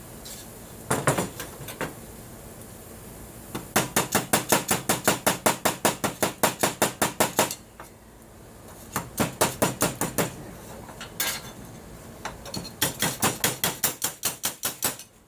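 Hammer tapping on a strip of aluminum, shaping a fitted brace: a couple of single knocks, then three runs of rapid, even strikes at about five a second with short pauses between them.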